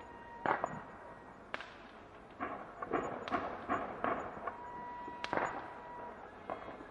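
Fireworks going off: a string of sharp bangs and cracks at irregular intervals, several close together in the middle.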